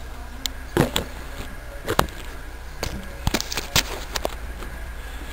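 A handful of irregular sharp clicks and knocks, the loudest about one second and two seconds in and a quick cluster around three to four seconds in, over a steady low hum.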